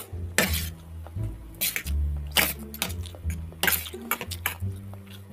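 Metal forks clinking and scraping on a plate of instant pancit canton noodles, with several sharp clinks, over background music with a steady bass line.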